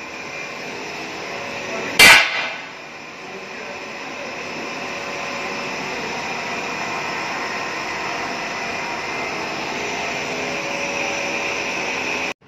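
Steady mechanical noise that slowly grows louder, with one sharp, loud bang about two seconds in; the noise cuts off abruptly near the end.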